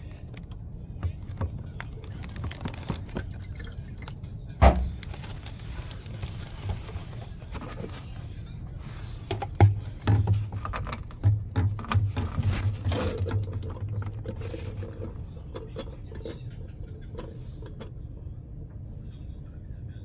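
Water trickling and dripping, with scattered clicks and knocks of tools and parts being handled; a sharp knock about four and a half seconds in, and a run of clattering knocks around the middle.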